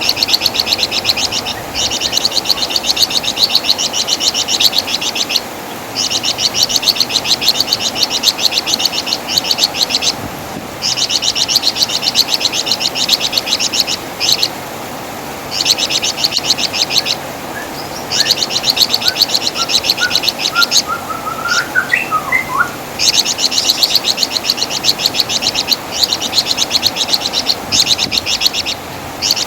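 A flamboyan (wergan Jawa) songbird singing its rapid, high chattering trill in repeated phrases of one to three seconds, with short pauses between them. A faint string of lower, rising chirps comes in about two-thirds of the way through.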